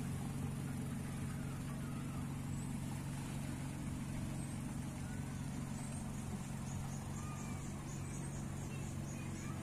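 An engine running steadily, a low even hum. Faint high chirps come and go above it, with a quick run of high ticks in the second half.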